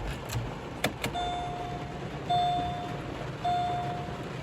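Two sharp clicks about a second in, then the 2007 Chevy Malibu Maxx's warning chime: a steady beep about a second long, repeating with short gaps.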